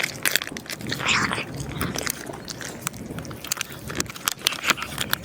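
A cat eating, chewing and crunching food with many small, irregular clicks.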